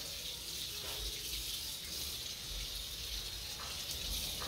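Water running steadily from a garden hose, splashing over a small dog being washed.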